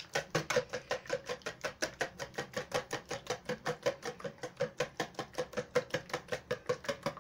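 Wire whisk beating an egg in a ceramic bowl: a rapid, even clicking of the wires against the bowl, about six strokes a second.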